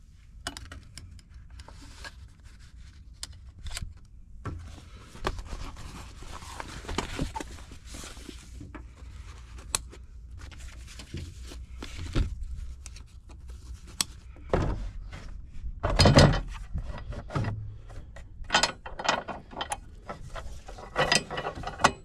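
Packing-up handling sounds: metal cutlery clinking as pieces are slid into a fabric cutlery roll, fabric rustling as the roll is folded up, and scattered knocks of gear being handled. The loudest is a heavy knock about sixteen seconds in, followed by a run of quick clicks.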